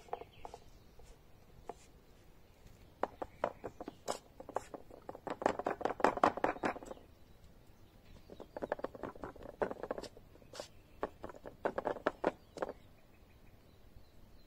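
Hands patting and pressing wet chicken fillets into a plate of seasoned flour, heard as three runs of quick, soft pats and taps, the loudest in the middle.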